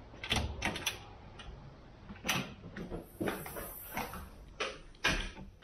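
Scattered clicks and knocks, about eight in all, of a sliding screen door and of things being handled in a small room, with the sharpest knocks a little over two seconds in and near the end.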